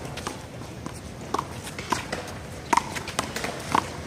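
Handball play: the small rubber handball smacks sharply and irregularly off hands, wall and court, about six times in four seconds. The loudest smacks come nearly three seconds in and near the end.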